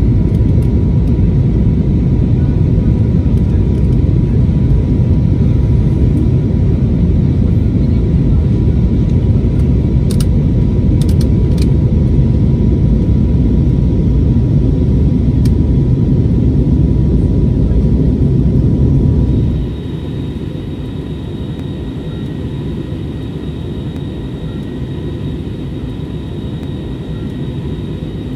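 Cabin noise of an Airbus A321neo in flight, heard from a rear window seat: a loud, steady low rush of airflow and its CFM LEAP-1A engines. About two thirds of the way through it drops suddenly to a quieter, steady cabin hum with a faint high whine.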